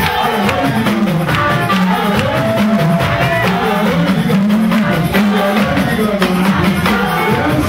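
Live band music: a drum kit keeping a steady beat under a repeating bass line, with a lead melody line that slides up and down in pitch.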